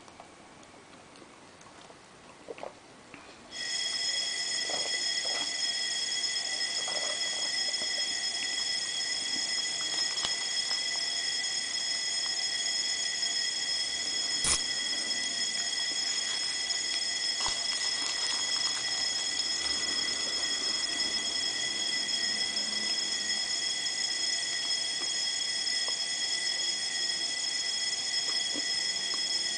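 A steady high-pitched whine, several high tones sounding together, starts suddenly about three and a half seconds in and holds unbroken. It drowns out faint eating sounds and occasional small clicks, with one sharp click about halfway through.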